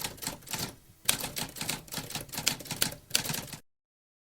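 Typewriter keys clattering in quick, irregular strikes, with a brief pause about a second in, then cutting off abruptly about three and a half seconds in.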